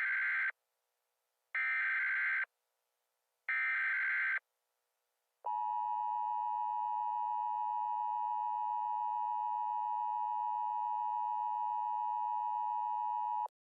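Emergency Alert System broadcast tones. First come three short bursts of buzzing data tones, the SAME header, about two seconds apart. About five seconds in, the steady two-tone attention signal starts; it holds for eight seconds and cuts off suddenly, marking the start of an emergency alert.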